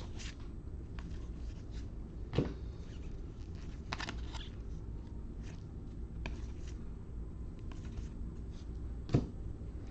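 Football trading cards being handled and slid one past another: soft rustling and small clicks, with two sharper clicks, one about two and a half seconds in and one near the end, over a low steady hum.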